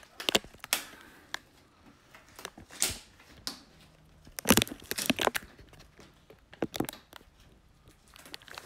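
Scattered handling noises close to the microphone: irregular crinkling and sharp clicks or taps, about a dozen short sounds in small clusters.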